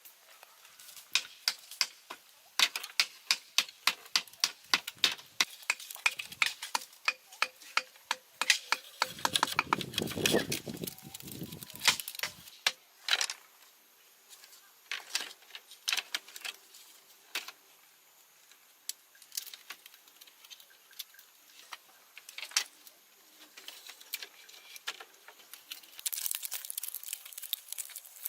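A hand tool striking in a steady rhythm of about two to three sharp knocks a second. The knocks break off into a lower scraping rush and then come more sparsely, with a short hiss near the end.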